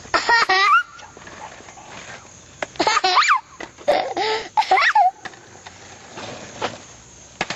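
A toddler's high-pitched squeals and laughter in three short bursts: right at the start, about three seconds in, and again around four to five seconds in.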